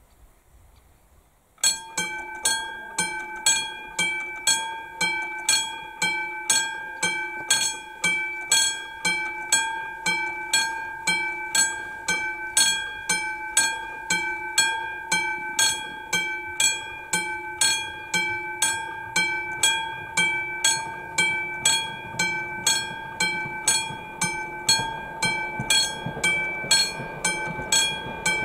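Classic electromechanical railroad crossing bell starting about 1.7 s in and ringing steadily at about two strikes a second: the level crossing is warning of an approaching train. Near the end a rising rumble of the approaching train grows under the bell.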